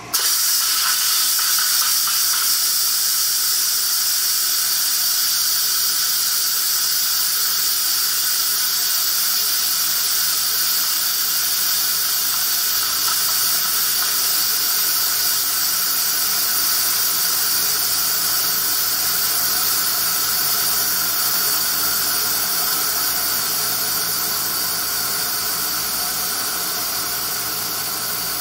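Instant Pot electric pressure cooker venting steam through its release valve and a diverter fitted on it in a manual quick release of pressure after cooking: a loud, steady hiss that starts suddenly and eases slightly near the end.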